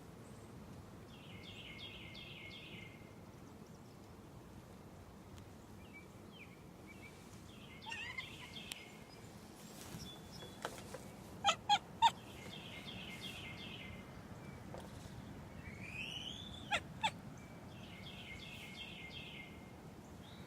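A bird calling: a quick trilled phrase of high notes comes three times, once near the start, once around the middle and once near the end. Between them are short, sharp chirps, three in quick succession about halfway through and two more later, which are the loudest sounds, along with a rising call.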